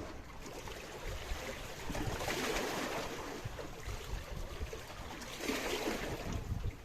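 Water sloshing and splashing, swelling twice for about a second each, over a low rumble.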